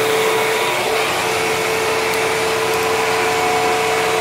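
Hoover WindTunnel twin-chamber upright vacuum cleaner running steadily, its motor giving a constant whine over the rush of air.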